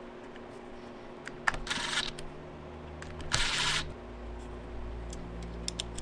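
Hands handling the trim router's power cord, tucking it under a small plate: light clicks and two short rustling scrapes, about one and a half and three and a half seconds in.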